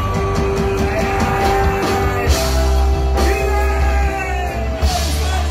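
Rock band playing live with a singer: held sung notes over heavy bass, drums and guitars.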